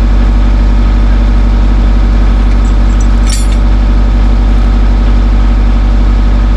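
Skid steer engine running steadily, with a brief metallic clink about three seconds in.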